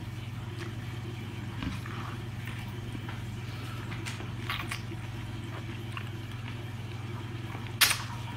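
Close-up mouth sounds of eating a sauce-coated octopus tentacle: soft smacks and chewing clicks, then a loud slurp near the end as the tentacle is sucked in. A steady low hum runs underneath.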